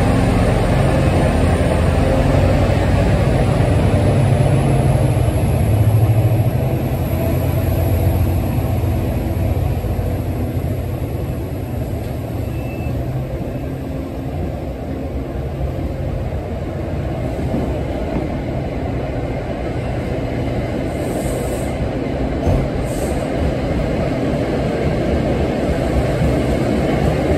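An MBTA commuter train passing close by. First comes the low running of its EMD F40PH diesel locomotive engine; then the coaches roll past with a steady rumble of wheels on rail. Two brief high squeaks come near the end.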